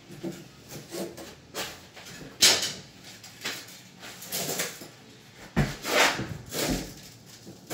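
Irregular knocks, clunks and scrapes of hands and tools working at a wooden cabinet, the loudest about two and a half seconds in and again around six seconds in.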